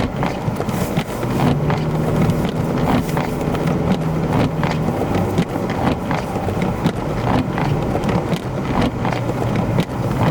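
A vehicle's engine hum with the pitch shifting now and then, under wind noise and frequent short knocks and thumps, as it drives through deep snow in a blizzard.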